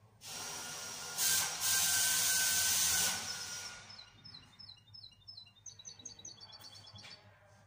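A loud, steady hiss lasts about three seconds, then a caged bird gives a quick run of short, high chirps that fall in pitch.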